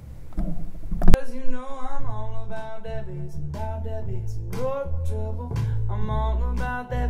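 A short quiet gap, then a sharp click about a second in, and music starts. Female vocals over a plucked upright bass line, with strong, full bass, are played back through a pair of Sonus Faber Olympica 1 bookshelf speakers and picked up in the room by a portable recorder.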